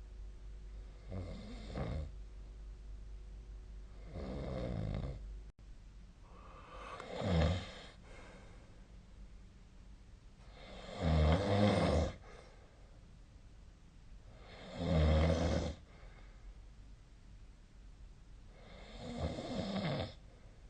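A sleeping person snoring: six snores, one about every three to four seconds, each lasting about a second, with the loudest about halfway through.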